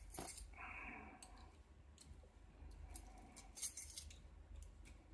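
Faint, scattered clicks and light metallic clinks of a door lock and its keys being handled.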